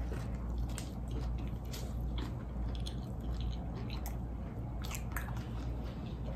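A person biting into and chewing a mouthful of fried chicken sandwich, with small wet mouth clicks scattered throughout.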